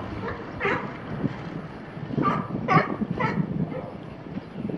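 California sea lions barking: short, hoarse, dog-like barks, with a run of three close together between about two and three and a half seconds in.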